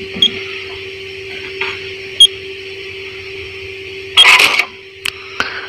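Key beeps from the control panel of a JUKI LK-1900A bartack sewing machine: three short high beeps about two seconds apart as the keys are pressed, over a steady hum. The third beep comes with a brief, louder mechanical clatter, followed by a couple of small clicks.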